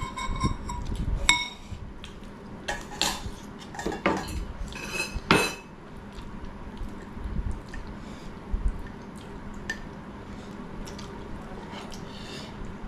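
Cutlery clinking and scraping against dishes during a meal. There are several sharp, ringing clinks in the first few seconds, then softer, scattered taps.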